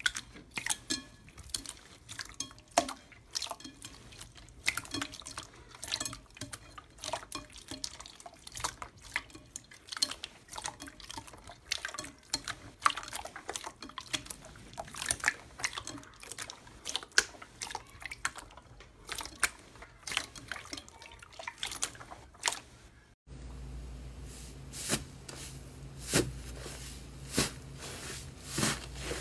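Very watery clear slime being squeezed and stretched by hand in a glass bowl: a dense run of irregular wet clicks and small squelching pops. About 23 s in it cuts to a fluffy slime being kneaded, with similar sticky clicks over a low hum.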